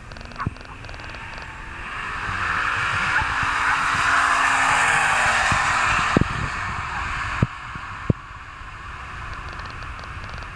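Turbocharged FC Mazda RX-7 drag car at full throttle on a quarter-mile pass. It swells as it comes by, is loudest about four to six seconds in, then drops away and fades down the track, with a few sharp knocks as it goes.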